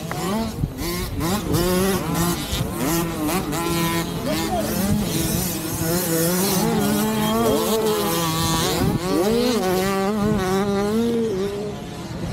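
Several small youth motocross bikes of the 50 cc and 65 cc classes running on a dirt track. Their engine notes overlap at different pitches and rise and fall as the riders rev and shift.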